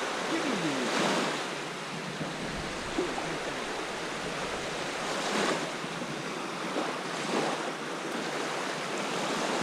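Small waves lapping and washing onto a sandy lakeshore, a steady rush with a few louder washes about a second in and again past the halfway mark.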